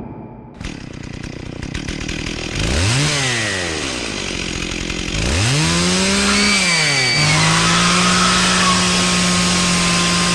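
Chainsaw starting up and revving: it rises and falls in pitch twice, then keeps running at a steady speed.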